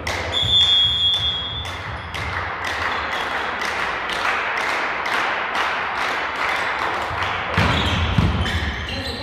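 Sports-hall sound at an indoor volleyball match: a short steady high whistle about a second and a half long near the start, then spectators' noise with regular claps, about two to three a second, and a few heavier thuds near the end.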